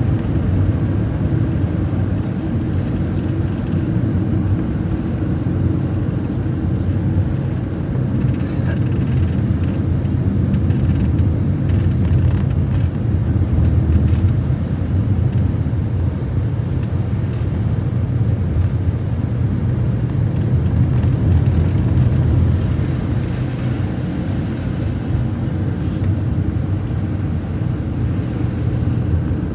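Steady low rumble of a vehicle's engine and road noise, heard from inside the cabin while driving.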